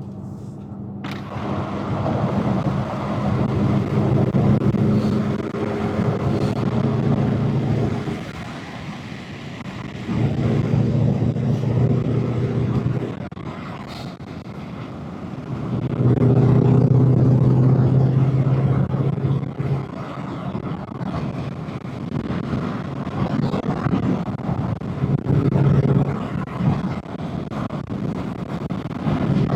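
2019 Mustang Bullitt's 5.0-litre V8 with long-tube headers, heard as the car is driven at a cruise. The engine note holds steady for a few seconds at a time and swells louder and softer several times as the throttle is opened and eased.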